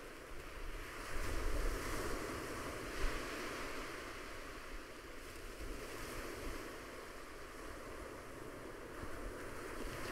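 Ocean surf and wind: a steady, soft rush of breaking waves, swelling a little about a second in.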